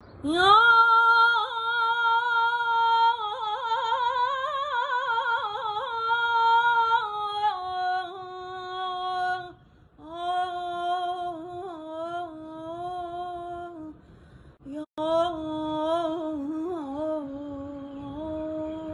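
A woman singing a slow melody in long held notes with vibrato and quick ornaments. She pauses briefly about halfway through and again about three-quarters of the way through.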